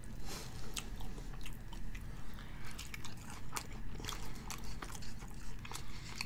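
Close-miked chewing and crunching of crispy seasoned fries dipped in cheese sauce, in a steady rhythm of about two chews a second with many small crisp clicks.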